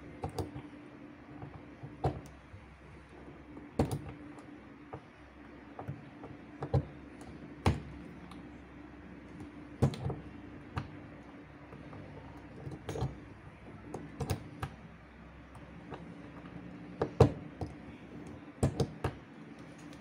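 Punch-down tool pressing network cable wires into the slots of a keystone jack: a string of sharp, irregularly spaced clicks as each wire is pushed down and cut, over a steady low hum.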